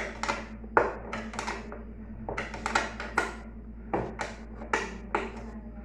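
Irregular clicks and clinks of hand tools and parts being handled while a washing machine is being taken apart, over a steady low hum.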